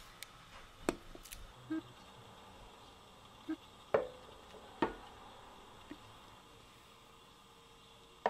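Light clicks and knocks of tableware being handled. The loudest, about halfway through, is a ceramic plate set down on a table with a brief ring.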